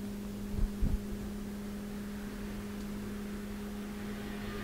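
A steady low electrical hum, with two brief dull thumps a little under a second in.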